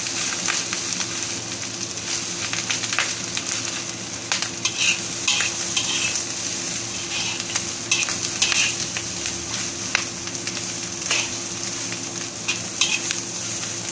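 Fried rice with zucchini and ham sizzling in a wok while a metal spatula stirs and tosses it, with frequent quick scrapes and taps of the spatula against the wok, over a steady low hum.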